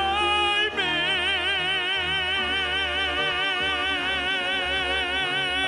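Male musical-theatre singer belting one long high note with wide, even vibrato over instrumental accompaniment, after a short lead-in note at the start.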